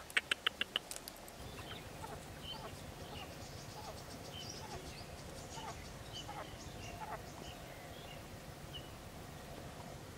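Quail giving faint, short chirping calls, scattered and some falling in pitch. At the start there is a quick run of five sharp clicks.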